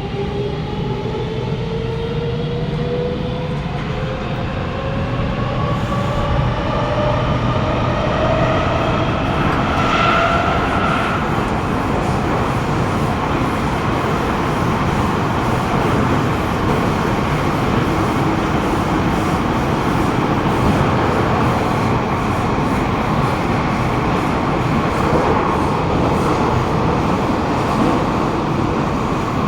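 Kawasaki Nippon Sharyo C751B metro train's traction motors whining in several tones that rise steadily in pitch as the train accelerates, for about the first ten seconds. The whine then gives way to the steady rumble of the train running at speed on the rails.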